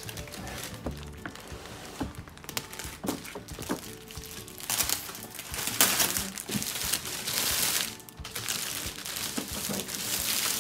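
Clear plastic wrap crinkling and rustling as a plastic-wrapped display box is handled and lifted out of a cardboard shipping carton. A few light knocks come in the first few seconds, and the crinkling is loudest from about halfway through.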